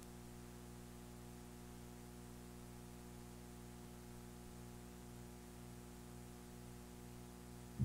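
Steady mains hum with a stack of overtones from a 3M Cantata 700 tape player's amplifier, turned all the way up. The amplifier has a failed germanium transistor, and no music comes through.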